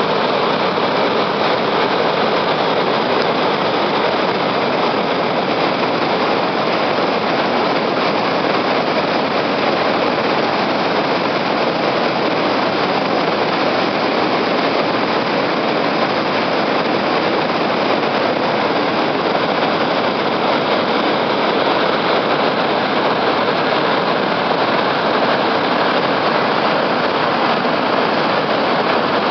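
Steady rush of the Kabura River's floodwater running high after Typhoon No. 19 (Hagibis), an even roar with no breaks.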